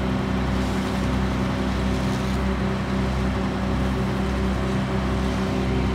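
Scania vacuum truck with a Rolba suction tank running, a steady drone with a constant low hum that holds unchanged throughout.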